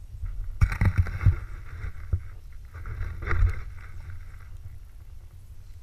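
Snowboard sliding and turning through powder snow: two swishing scrapes, about half a second in and again about three seconds in, with a few sharp knocks during the first. A steady low wind rumble on the microphone runs underneath.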